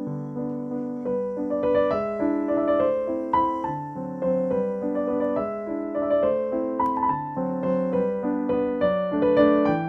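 Background piano music: a gentle melody of single notes struck over held chords, each note fading after it is played.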